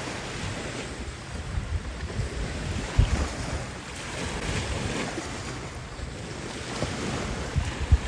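Small waves washing over the rocks at the shore, with wind buffeting the microphone in gusts; the sharpest gust thumps come about three seconds in and again near the end.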